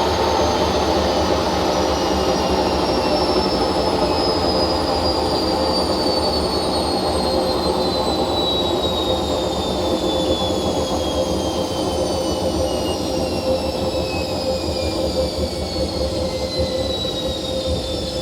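Hotpoint First Edition washing machine on a 1200 rpm spin, its worn drum bearings making a loud rumbling roar with a squealing, screeching whine. The high whine slides steadily lower in pitch throughout.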